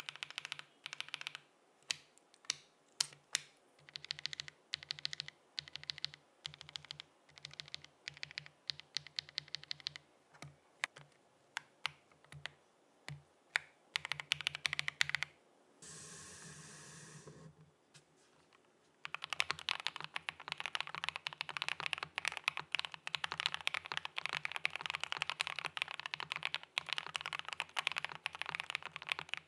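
A mechanical keyboard with lubed Akko Cream V3 Yellow linear switches, an aluminium case and plate, and PBT keycaps being typed on. It starts with separate keystrokes and short runs of keys, then a couple of seconds of steady noise around the middle, then fast, continuous typing through the rest.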